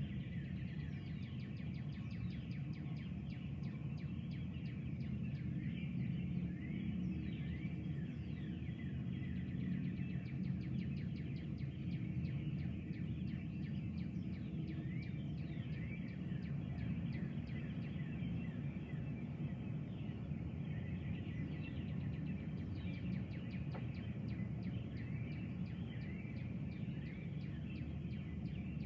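Several birds calling and singing at dawn in rapid runs of short, high, falling notes over a steady low rumbling background.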